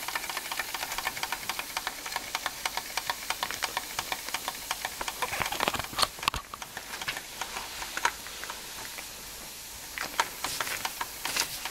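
Antique Bing toy vertical steam engine running: a rapid, even ticking from its piston and crank, with a steady hiss of exhaust steam. A single louder knock comes about halfway through, and the ticking turns sparser and quieter for a moment before picking up again near the end.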